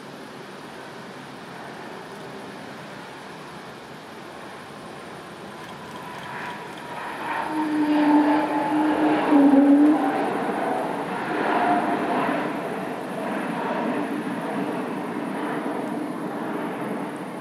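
Airbus A220-300 jet airliner with Pratt & Whitney geared turbofan engines rolling past on the runway. The engine noise swells to its loudest about eight to ten seconds in as it passes closest, with a low hum and a higher whine, then eases as it moves away.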